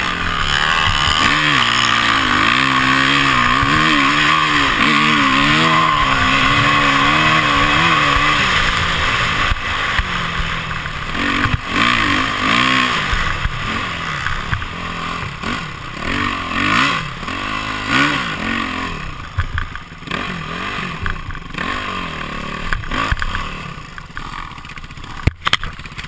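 Dirt bike engine heard from the bike itself, revving up and down through the gears, with a loud rushing wind hiss on the microphone. From about nine seconds the revs come and go more unevenly and quieter as the bike slows, with a couple of sharp knocks just before the end.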